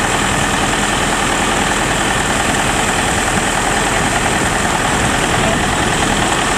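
FMWorld WD102 Pro combine harvester's diesel engine idling, a loud, steady running sound with no change in speed.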